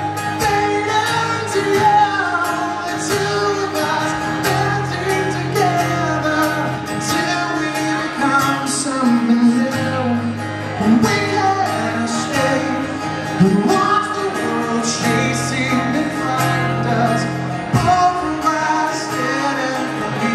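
Acoustic guitar strummed steadily, with a man singing over it live into a microphone.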